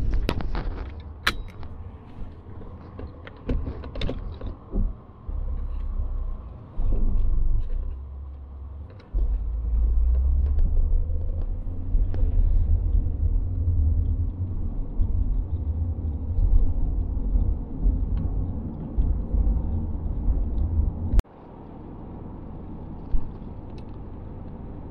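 A few sharp knocks near the start, then road noise inside a moving Ford Fairmont AU: a heavy, uneven low rumble as it passes a convoy of tanker lorries. About 21 seconds in the rumble cuts off abruptly to a quieter, steady road noise.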